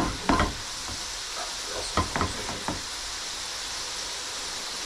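Chips frying in a panful of hot fat, a steady sizzle, with a few short knocks of metal tongs against the pan, one just after the start and a cluster about two seconds in.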